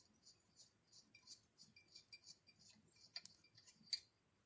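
Near silence, with a few faint small clicks, two of them a little stronger, about three and four seconds in.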